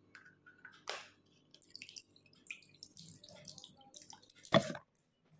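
Water splashing and dripping into a washbasin as hands are wetted at the sink, in small scattered splashes with one louder splash about four and a half seconds in.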